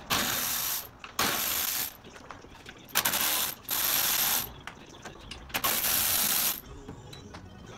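A ratchet backing out the 13 mm bolts that hold a truck's AC condenser, running in five short bursts of under a second each with brief pauses between.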